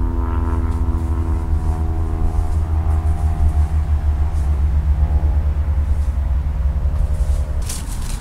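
Nearby road traffic: a heavy vehicle's engine drone over a deep rumble, the drone slowly dropping in pitch and fading out. Rustling of leaves and undergrowth near the end.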